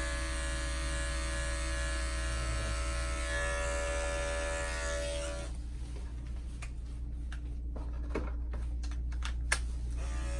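Andis 5-speed electric dog clippers running with a steady drone. About five and a half seconds in the drone stops, a few sharp clicks and taps follow, and the clippers start running again near the end.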